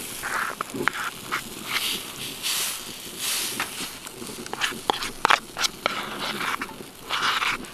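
Metal spoon scraping thick batter out of a metal bowl and clinking against the bowl and a waffle iron, with sharp clicks scattered throughout and short scraping rasps between them.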